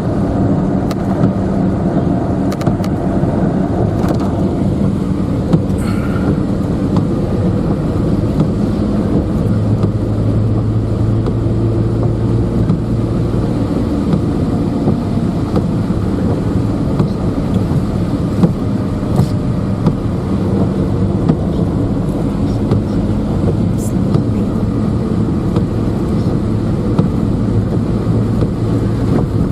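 Car driving along, heard inside the cabin: a steady engine hum and road noise with a low drone throughout, and a few faint clicks.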